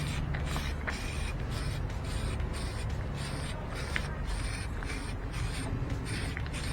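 Aerosol can of etching primer spraying as a hiss in short, repeated bursts with brief breaks between them.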